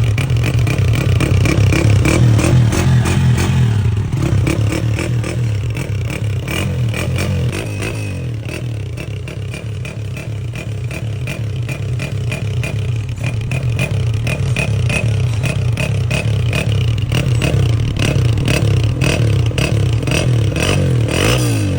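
A vehicle engine running, with a rapid clattering rattle over its low hum. It eases off a little midway and picks up again later.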